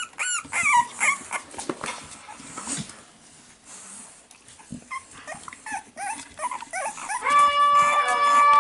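Four-week-old Staffordshire Bull Terrier puppies whining and yelping in high, bending cries, with small knocks among them. From about seven seconds in, a loud steady honking tone starts, from a sound-effects CD played to the puppies.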